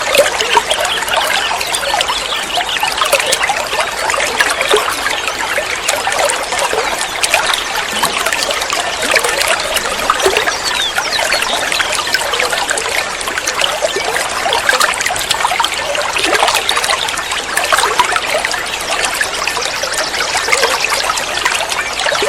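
Water trickling and dribbling steadily, an unbroken stream of small splashing flickers.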